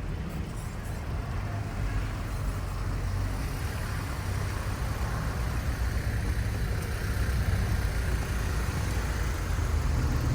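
Low, steady rumble of passing vehicles, growing gradually louder toward the end.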